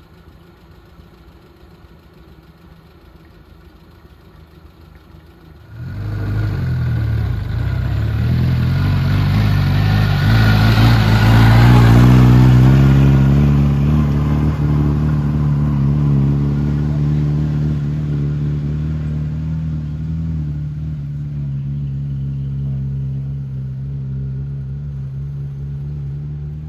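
Small vintage car's engine driving up a steep, rough track, faint at first and then suddenly loud about six seconds in. It rises in pitch as the car accelerates, is loudest about halfway through, then holds a steady note that slowly fades.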